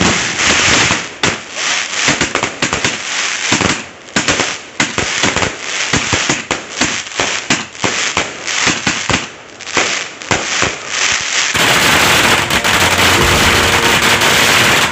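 Leegendary Fireworks' Takeshi Castle 150-shot fireworks cake firing a rapid, irregular series of shots and crackling bursts, several a second. Near the end the sound cuts abruptly to a dense, steady hiss.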